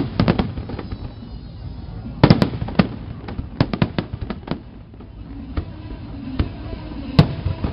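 Aerial firework shells bursting in a rapid, irregular barrage of sharp bangs. The bangs come thickest at the start and from about two to four and a half seconds in, then thin out to single ones.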